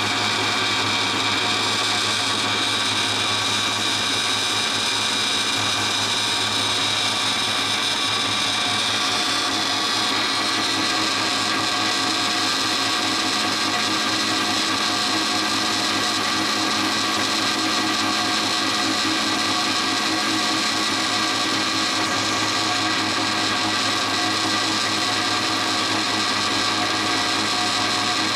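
DoALL C-70 horizontal band saw running in automatic cycle: a steady machine hum and whine with several fixed tones, its highest tone fading about ten seconds in.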